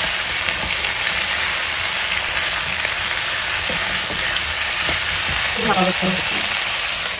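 Cauliflower and potato pieces sizzling steadily in hot oil in a kadai while a wooden spatula stirs and turns them through the pan.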